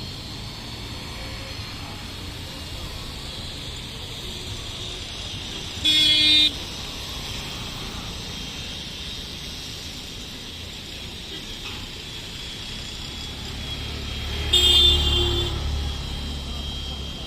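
Two short vehicle horn toots, one about six seconds in and a slightly longer one near the end, over steady background traffic noise; a low rumble swells under the second toot.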